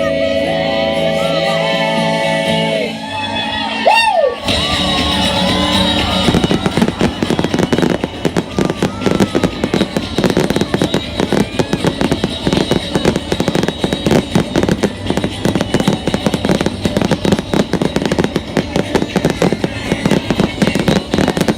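Music with long held notes, then a short whistle rising and falling about four seconds in, after which fireworks crackle and pop densely and without pause.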